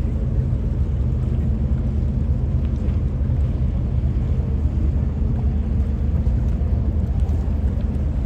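Steady low engine rumble, unchanging throughout, with a faint hum of steady tones in it.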